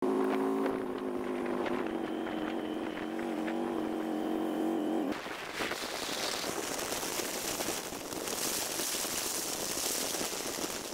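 Harley-Davidson Road Glide Special's V-twin engine running under way, a steady drone. About five seconds in, wind rushing over the microphone takes over as the loudest sound, growing stronger.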